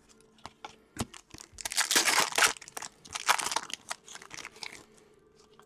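Foil wrapper of a hockey card pack being torn open and crinkled by hand, in two crackling bursts about two and three and a half seconds in, after a few light clicks.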